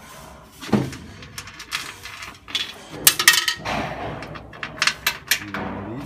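Light metallic clicks and clinks of small parts being handled and fitted against sheet metal, a scatter of short knocks with a quick cluster about three seconds in.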